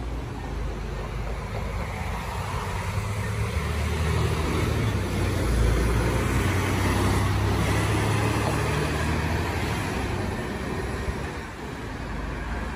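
Articulated city bus passing close by, its engine running with a steady low hum over tyre noise. It grows louder about halfway through and fades near the end into passing car traffic.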